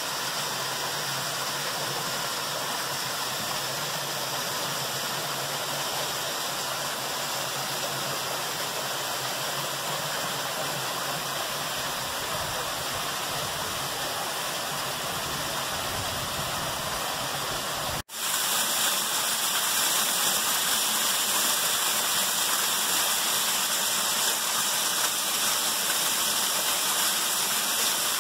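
Small creek waterfall pouring between boulders into a pool: a steady rush and splash of water. Cut off abruptly about two-thirds of the way through, it resumes louder and hissier, close to the falling water.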